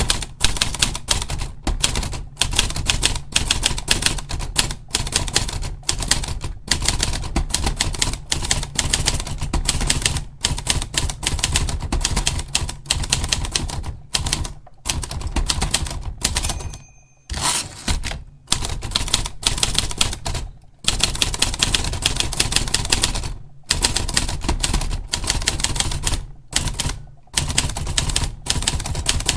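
Olivetti Lettera 32 manual portable typewriter being typed on at a brisk pace: a rapid run of sharp key and typebar strikes, broken by a few short pauses. A short bell-like ring sounds once, about halfway through.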